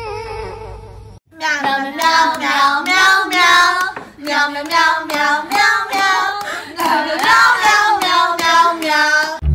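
A short high whining cry in the first second, then a high, child-like voice singing a melody, loud and continuous.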